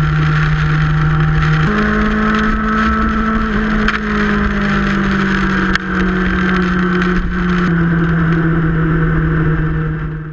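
Yamaha YZF-R6 600 cc inline-four sportbike engine running steadily at road speed, over a constant rush of wind and rain noise. Its pitch steps up under throttle a little under two seconds in, then drops back in two steps later on, and the sound fades out at the end.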